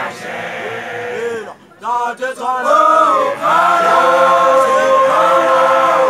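A group of young men chanting together in Sesotho initiation style, with a short break about a second and a half in, then a long held note through the second half.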